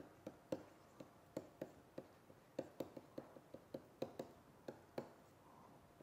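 Faint, quick taps and clicks of a stylus on a tablet screen while a formula is handwritten, about four a second, stopping about five seconds in.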